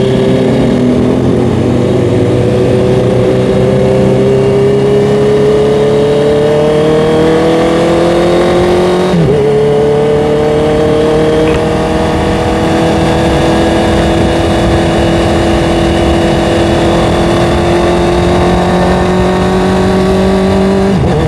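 Honda CBR650R's inline-four engine running under way, its pitch climbing slowly as the bike gathers speed. There is a brief dip and jump in pitch about nine seconds in, after which the engine drones on, steady and slowly rising.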